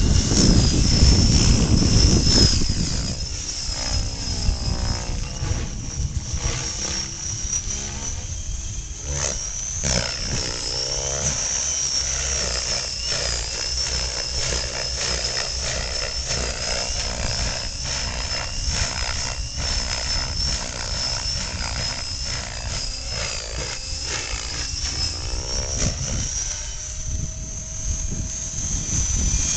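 Electric radio-controlled helicopter in flight: a high motor and rotor whine whose pitch wavers as it manoeuvres, with loud low rotor noise for the first couple of seconds before it eases off. The sound sweeps up and down a few times as the model passes.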